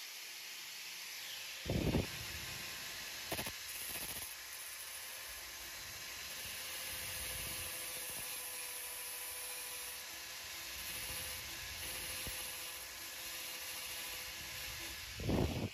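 Steady hiss of a small air-powered grinder smoothing a weld bead on a crankshaft tone ring, broken by a few short knocks. The tool stops right at the end.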